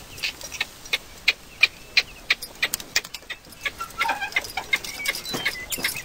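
A team of harnessed workhorses moving off: a steady run of sharp clicks and clinks, about three a second, from hooves and harness hardware. It grows more irregular about halfway through, with a few short chirps.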